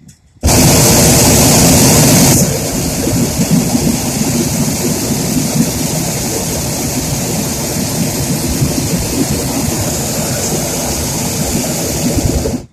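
Hot air balloon's propane burner firing in one long blast: it starts suddenly, is louder and hissier for the first two seconds, then runs steadily for about ten seconds and cuts off abruptly, heating the envelope to climb.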